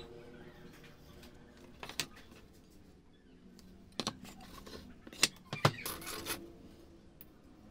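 Tools and wood handled on a workbench cutting mat: a few scattered knocks as a homemade wooden compass and teak blanks are set down and picked up. About five seconds in, a steel ruler comes down with two sharp clicks, followed by a brief scrape.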